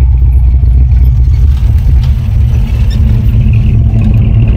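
Classic Ford Galaxie rolling past at low speed, its engine exhaust giving a loud, deep, steady rumble with a fast uneven pulse.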